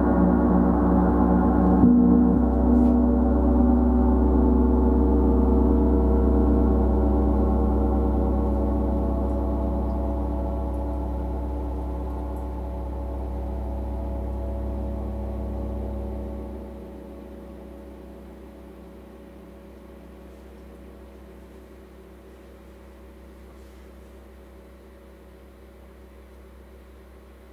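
A large gong ringing and slowly dying away, its many overtones beating against one another, touched again lightly about two seconds in. Its deep low hum stops abruptly a little past halfway, leaving a fading shimmer of higher tones.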